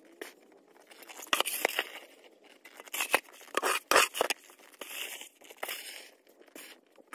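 Boots crunching through deep fresh snow, a run of uneven crunching steps that is loudest about three to four seconds in.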